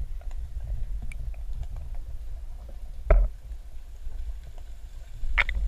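Muffled underwater rumble of moving water against a submerged camera, with faint scattered clicks and two sharp knocks, one about three seconds in and a louder-sounding one near the end.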